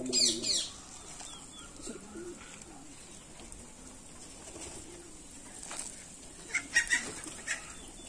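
A flock of domestic pigeons feeding: soft low cooing now and then, a brief burst of wing flapping at the start, and a few sharp clicks about seven seconds in.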